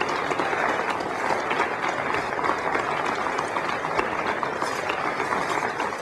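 A roomful of people applauding steadily, celebrating the successful separation of the satellite from the Ariane 5.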